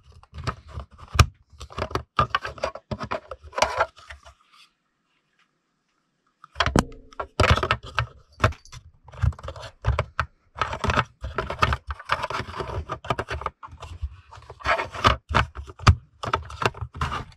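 Hard plastic toy parts of a G.I. Joe Retro Cobra HISS tank clicking, rattling and scraping as the gun turret is worked into place, a dense run of sharp clicks that stops for about two seconds near the middle.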